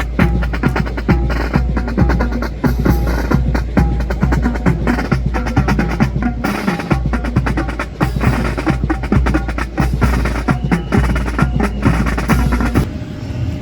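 Drill-display percussion: a fast run of sharp wooden clacks and drum beats over a steady low rumble, stopping abruptly near the end and leaving only the rumble.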